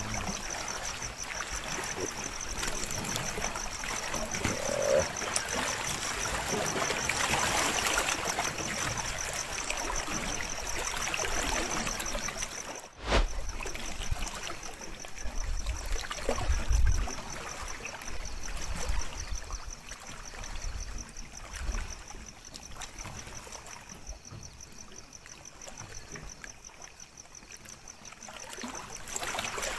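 Night lakeshore ambience: a steady wash of lapping water under an evenly pulsing high trill of night insects. There is a short break about 13 seconds in, and a few low bumps near the middle.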